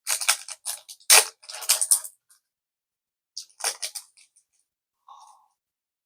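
Packaging being handled and opened by hand: quick crinkling and rustling for about two seconds, then again briefly about three and a half seconds in.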